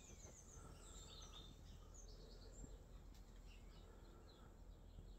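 Near silence with faint birds chirping in short, high, repeated notes, busiest in the first second or so, over a low background rumble.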